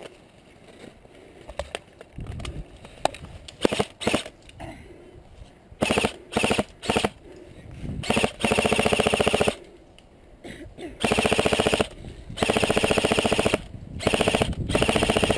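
Airsoft gun firing on full auto: a few short bursts about six seconds in, then long bursts of rapid fire, each over a second long, with a buzzing whirr under the shots. Before that, only faint scattered clicks.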